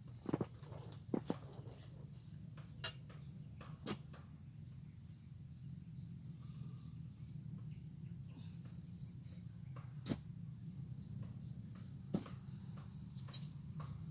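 Steady high-pitched insect chorus, with about half a dozen short, sharp knocks scattered through it.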